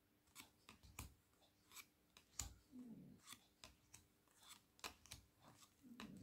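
Small square tarot cards being leafed through by hand, moved one at a time to the back of the deck: faint, irregular card clicks and rubs.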